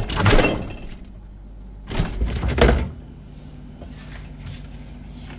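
Refrigerator door and its contents being handled: two clattering bursts of thuds and knocks, one at the start and another about two seconds in, as the door is shut to silence its open-door alarm.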